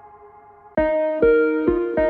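Background music: a soft held chord fades, then about three-quarters of a second in a bright melody of struck or plucked notes starts, a new note roughly every half second.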